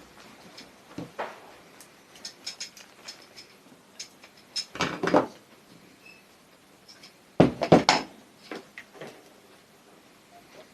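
Small metal tools and motor parts clinking and knocking during hand work on a sewing machine motor: scattered light clicks, then two louder clattering spells, one about five seconds in and one about seven and a half seconds in.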